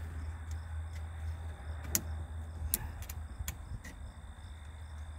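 Five sharp, light clicks from small parts being handled at the top of a 1982 Jeep CJ7's stripped steering column, about two to four seconds in. They sound over a steady low hum and chirping insects.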